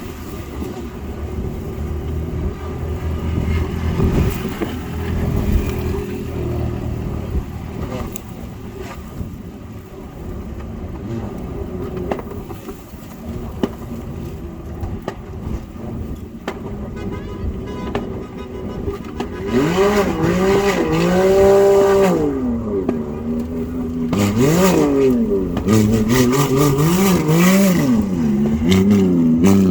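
Parade vehicle engines running with a steady low drone. From about two-thirds of the way in, a loud pitched wail repeatedly rises and falls in pitch.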